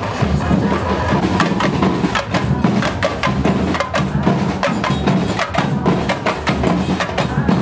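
Percussion music: drums played in a fast, busy rhythm, with many sharp hits over a deep, steady drum sound.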